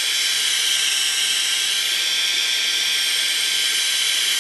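Handheld electric heat gun running steadily, blowing hot air over wet paper to dry and brown it: a steady rushing hiss with a high whine.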